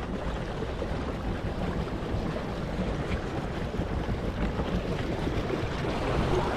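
Water rushing and churning along the hulls of two pedal-drive kayaks racing side by side under hard pedalling, with wind buffeting the microphone. The noise builds slowly.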